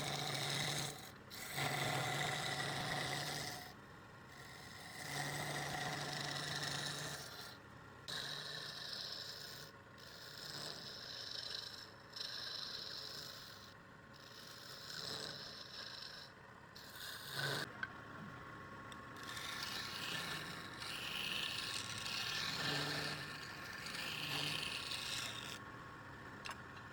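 Wood lathe running while a turning tool scrapes the spinning wood, in passes of a second or two with short breaks.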